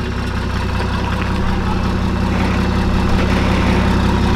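Toyota Land Cruiser 80-series engine running at low revs as it crawls over a rock obstacle. It grows steadily louder from about a second in as it takes more throttle.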